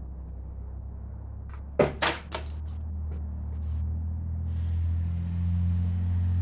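Sharp plastic and metal clicks and knocks from an airgun's CO2 magazine being handled while a cartridge is loaded, followed a little past halfway by a steady hiss of CO2 gas escaping as the cartridge is pierced and seated, over a steady low rumble.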